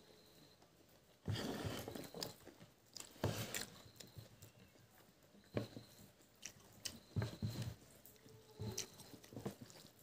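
A person chewing a mouthful of food, in irregular bursts of chewing sounds with a little crunch.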